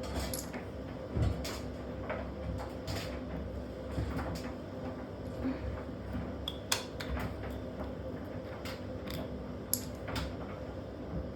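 Washing machine running with a brick tumbling in its drum: a steady motor hum under irregular clanks and knocks as the brick strikes the drum.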